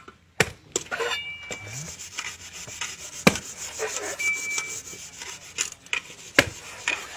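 A coconut husk being scraped and rubbed, with a few sharp knocks about three seconds apart.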